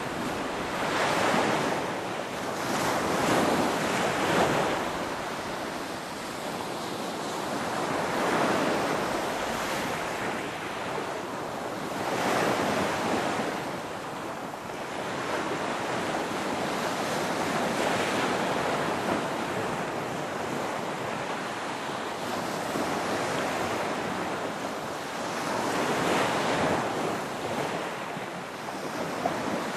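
Ocean waves breaking and washing on a shore, a steady surf hiss that swells with each wave every few seconds.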